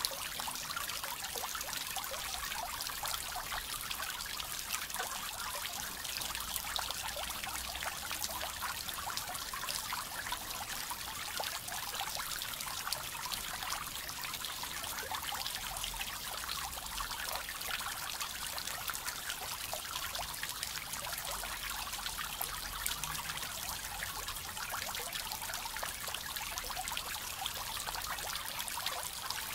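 Small garden pond fountain spraying fine jets of water that fall back onto the pond surface in a steady, even splashing trickle.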